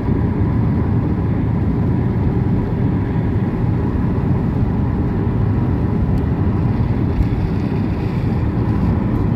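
Steady road noise of a car driving, heard from inside the cabin: an even low rumble of engine and tyres on a wet road.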